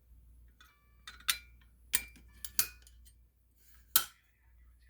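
Handling sounds as fire alarm equipment is reset by hand: about five sharp clicks and light metallic clinks, the loudest one near the end.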